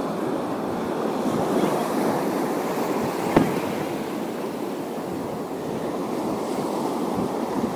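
Waves washing against the shore, a steady rushing wash with wind buffeting the microphone. A single sharp click sounds about three and a half seconds in.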